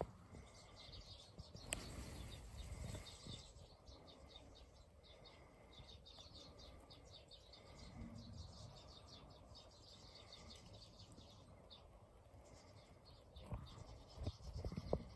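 Faint twittering of a flock of small garden birds: many quick high chirps, with a short note repeated every couple of seconds. A few louder rustles or knocks come near the end.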